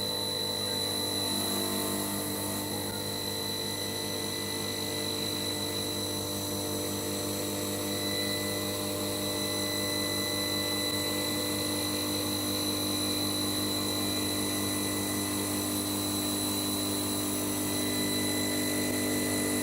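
CNC wood turning lathe running: a steady machine hum with a high, even whine, unchanging throughout.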